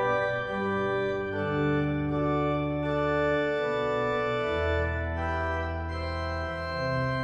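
Organ playing slow, sustained chords on its own, the harmony changing every second or so, with a deep bass note held in the second half.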